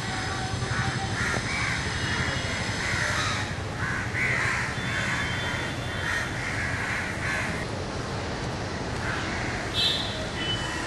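Crows cawing over and over, many short calls one after another with a break about two-thirds through before they start again, over a steady low background hum.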